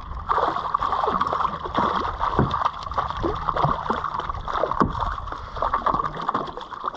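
Hooked kahawai thrashing at the surface beside a kayak, with irregular splashing and gurgling water against the hull.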